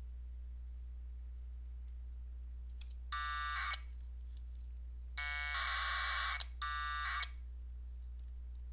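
Three short, buzzing bursts of packet-radio AFSK data tones: one about three seconds in, then a longer burst followed at once by a short one. They are the connect request and the node's answering frames as the AX.25 link to the LinBPQ node comes up. A steady low hum runs underneath.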